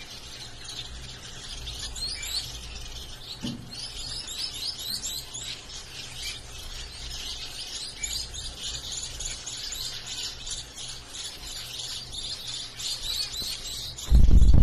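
Zebra finches calling, many short overlapping chirps in quick succession, with a loud low thump near the end.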